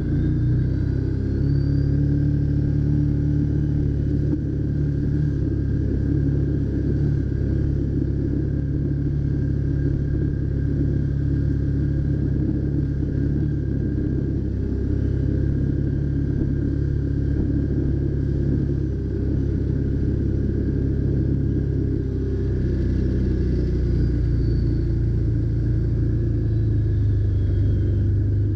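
Can-Am Commander side-by-side's engine running steadily at cruising speed on a gravel trail, heard from the cab, with a low steady drone that dips slightly about two-thirds of the way through.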